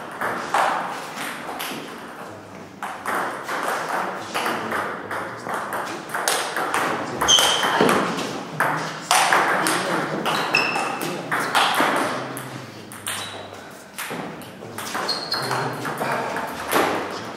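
Table tennis rallies: a celluloid ball clicks against paddles and bounces on the table in quick succession, with short breaks between points. A few brief high squeaks come through in the middle of the rallies.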